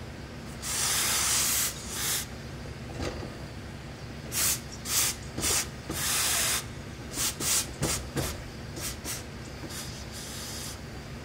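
Industrial hose-fed steam iron hissing in about a dozen short bursts of steam, with longer ones about a second in and around six seconds, as it presses suit trousers whose old pleat line has been dampened with water.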